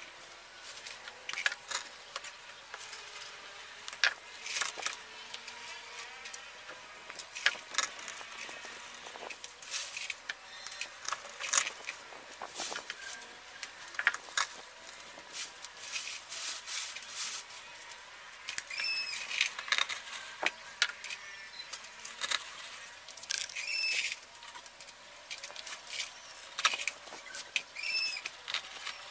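Rustling and crackling of stiff artificial fern fronds and plastic flowers being handled and pushed into place, heard as irregular sharp clicks. A few short squeaks come in the second half.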